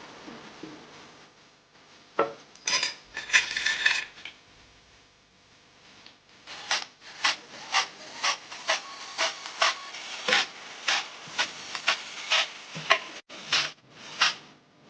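Hand ratchet wrench clicking in short regular strokes, about two to three a second, running down the bolts of a new oil pan on a BMW N54 engine, after a few scrapes and clicks of metal parts being set in place.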